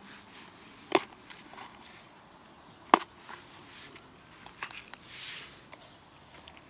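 Plastic containers of dry cat food being handled while cats eat from them: two sharp clicks about two seconds apart, then a few smaller clicks and a brief rustle near the end.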